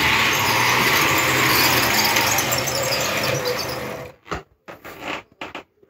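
Model train, a fire-brigade train hauled by a model BR 132 'Ludmilla' diesel locomotive, running along the layout track: a steady motor whir with wheel noise that dies away about four seconds in, followed by a few faint knocks.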